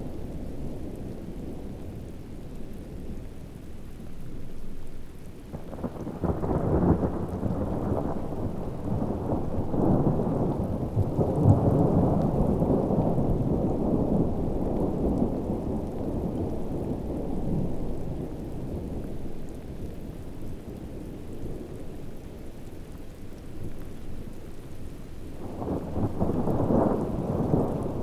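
Steady heavy rain with thunder: a long low rumble rolls in about six seconds in, swells and dies away over some ten seconds, and a second roll of thunder starts near the end.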